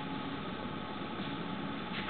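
Steady background hiss with a low hum, even throughout, with no distinct events.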